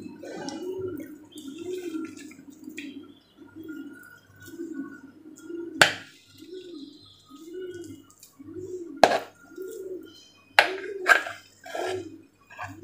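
A pigeon cooing over and over, one short coo about every two-thirds of a second. Several sharp metal clinks against a steel pot as thick cream is scraped into it, about six seconds in, at nine seconds and twice near the end, are the loudest sounds.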